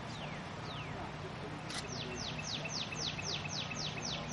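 A songbird singing: a couple of single down-slurred whistles, then about two seconds in a rapid run of about ten downward-sweeping notes, roughly four a second. A steady low hum runs underneath.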